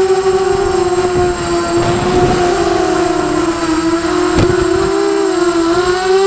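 Brushless motors of an Emax Night Hawk 280 Pro FPV quadcopter whining in flight. The pitch wavers up and down with the throttle. There is a short rush of noise about two seconds in and a sharp knock a little past four seconds.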